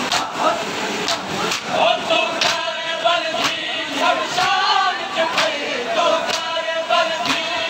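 Men's voices chanting a Shia noha lament with the crowd, over a sharp beat about once a second from the mourners' chest-beating (matam). The chanting comes in about two seconds in.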